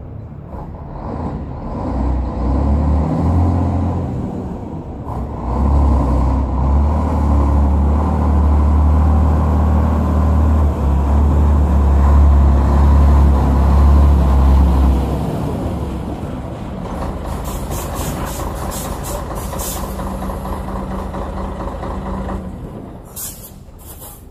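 Scania 113 360's straight-six diesel pulling a 30-metre two-trailer rig, running hardest from about six to fifteen seconds in, then settling to a lower steady run as the truck comes to a stop. Sharp hisses of compressed air from the air brakes come about seventeen seconds in and again just before the end.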